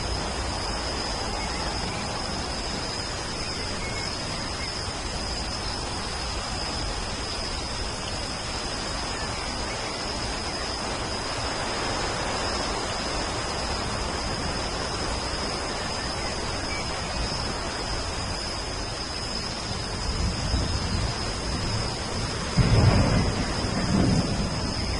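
Steady rain falling. Thunder rumbles in over the last few seconds, loudest about 23 seconds in.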